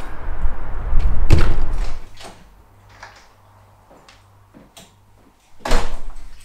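Two doors shutting. A garden gate door knocks shut about a second in over outdoor background noise. Then, against a quiet room with a faint low hum, a door bangs shut loudly near the end.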